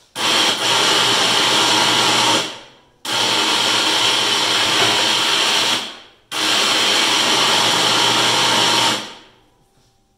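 ATV's electric winch motor running in three steady bursts of two to three seconds each, with short pauses between, working the snow plow blade up and down on its cable.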